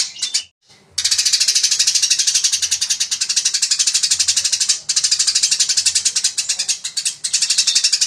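Eurasian tree sparrow (burung gereja) chattering in a fast, dense run of high chirps, about a dozen a second: its 'tarung' fighting chatter. The run breaks off briefly about half a second in, near five seconds and near seven seconds.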